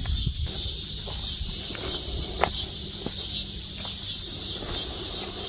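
Insects shrilling in a high, hissing chorus with a repeating pulse about twice a second, over low rumbling noise; a single sharp click about halfway through.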